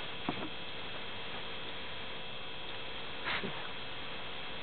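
Steady electrical hum with hiss, several thin steady tones that do not change, with one short faint noise about three seconds in.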